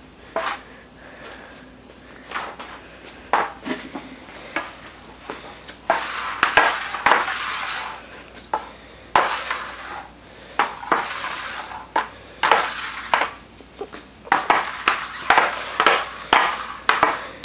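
Hockey puck being stickhandled on a plastic skill pad: quick repeated clacks of the puck against the stick blade, with stretches of the puck and blade scraping across the board between them. The pad is freshly treated with furniture polish so the puck slides more easily.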